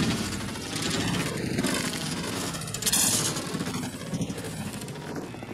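Mud truck tumbling over in sand, its engine sound dying away as it rolls, with a sudden loud crash about three seconds in.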